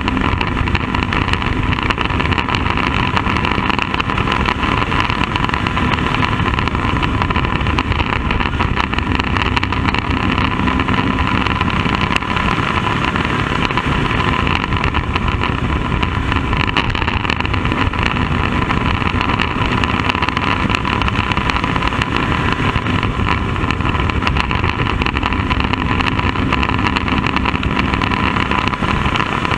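Bandolero race car's single-cylinder Briggs & Stratton engine running hard and steady at speed, heard from inside the open cockpit, with a constant high tone over it.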